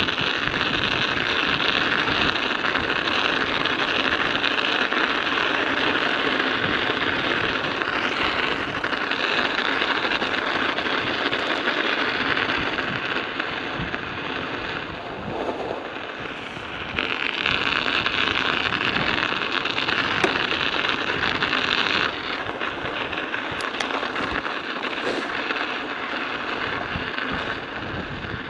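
Studded bicycle tyres rolling on ice and packed snow: a continuous crunching clatter of the metal studs, with strong wind buffeting the microphone.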